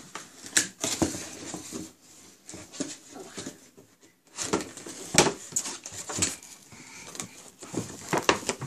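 Cardboard toy box with a plastic window being handled and opened: irregular knocks, scrapes and crinkling of the cardboard and plastic packaging.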